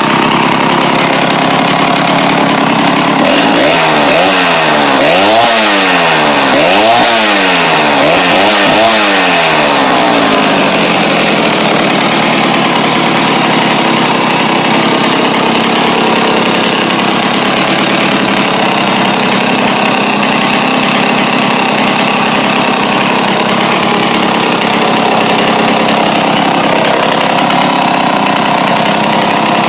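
Pioneer Super 620 two-stroke chainsaw engine running, revved up and down about five times in the first ten seconds, then running steadily. It has just been brought back to life with a new fuel line and its Tillotson carburettor tuned pretty well, though the owner says it is still not quite right.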